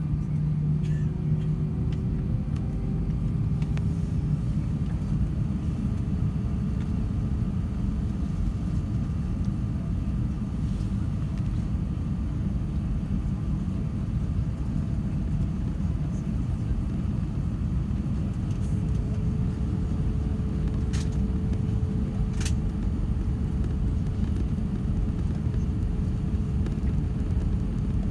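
Cabin noise of an Airbus A320-232 taxiing: a steady low rumble from its IAE V2500 engines at idle and the rolling airframe, with a faint steady hum over it. Two brief clicks about three quarters of the way through.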